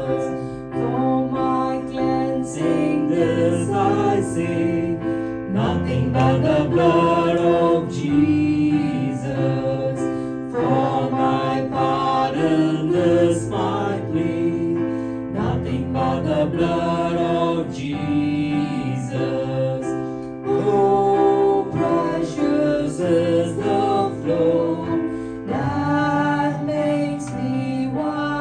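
Worship song: voices singing a slow gospel hymn over keyboard accompaniment.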